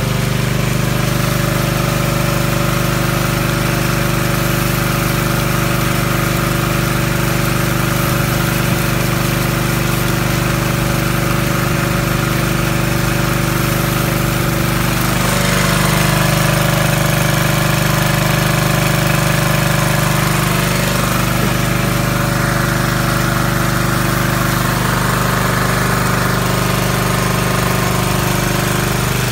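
Engine-driven water pump running steadily at constant speed, feeding water to the sluice's spray bars.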